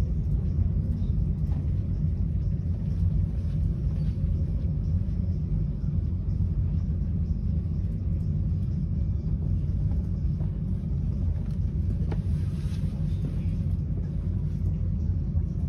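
Steady low rumble of an ÖBB Railjet train running on the rails, heard from inside a passenger coach, with a few faint clicks.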